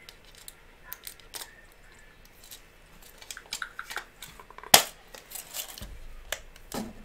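Small hard clicks and light rattles of electronic parts being handled, picking out and fitting a jumper wire for a breadboard. The loudest is one sharp click a little under five seconds in, with scattered smaller ticks around it.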